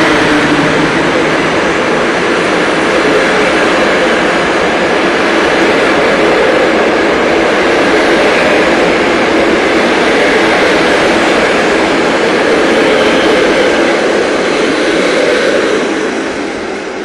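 Passenger coaches of a departing train rolling past at low speed: a loud, steady rolling noise of wheels on rails under the station's arched train shed. It fades near the end as the last coach pulls away.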